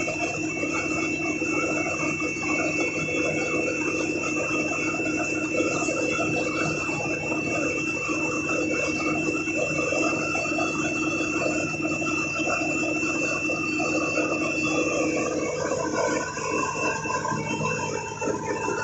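Heavy construction machinery running steadily, with a continuous high-pitched whine over a lower hum; the whine stops about three-quarters of the way through.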